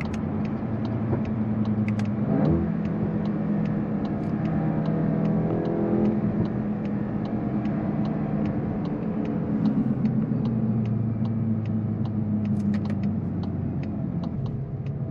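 In-cabin sound of a MK8 Volkswagen Golf GTI's 2.0-litre turbocharged four-cylinder engine running at light load as the car slows, its note shifting pitch a few times, heard together with road noise. A steady light ticking about three times a second runs underneath.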